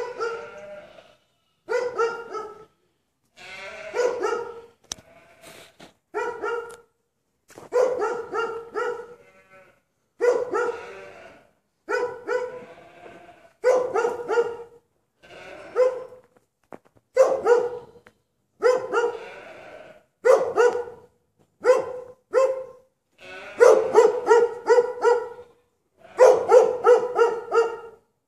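Large white dog barking over and over, in bursts of several barks about every one to two seconds.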